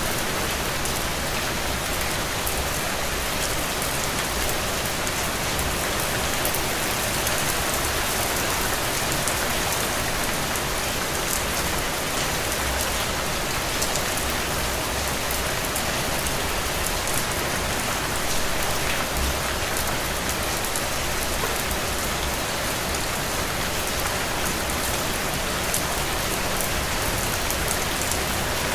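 Heavy, steady rain falling on ground, a dense even hiss with many fine drop ticks and no thunder.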